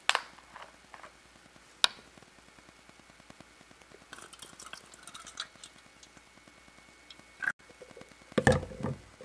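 Plastic water bottle being handled: a few sharp clicks, then water poured from the bottle into a clear plastic cup for about a second and a half, and a louder knock near the end.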